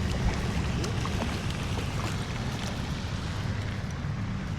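Wind buffeting the microphone: a steady low rumble with a few faint scattered ticks.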